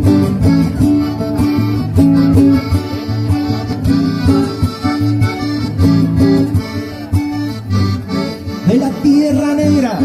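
Accordion and strummed acoustic guitar playing the instrumental introduction of a folk song, with a steady pulse. A singer's voice comes in near the end.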